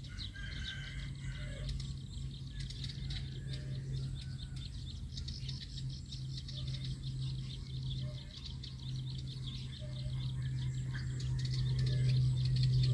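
Scattered bird chirps over a steady low motor hum, the hum growing louder near the end.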